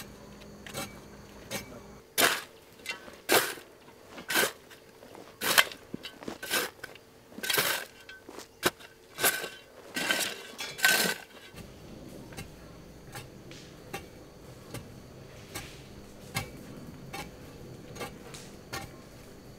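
A run of loud, sharp clinks and knocks of hard objects striking each other, each with a brief ring, irregularly about twice a second from about two seconds in until about eleven seconds in. Fainter, evenly spaced ticks a little more than once a second run under it throughout.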